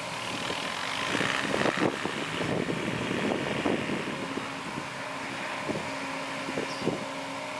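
Heavy machinery engine running steadily, with scattered knocks and clanks.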